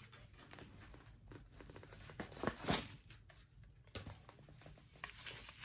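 Packaging crinkling and rustling as it is handled and unwrapped, with a louder rustle near the middle, a sharp click a little later, and denser crinkling near the end.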